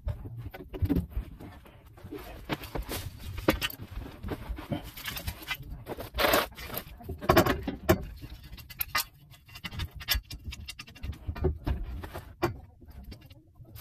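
Irregular scraping, rustling and clicking of a person shifting about and handling tools and pipe fittings in a cramped crawlspace. The louder scrapes come around the middle.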